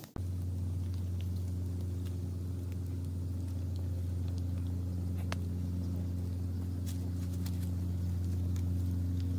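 A steady low hum with a few fainter overtones above it, starting suddenly and unchanging throughout, with faint scattered crackles from a wood fire.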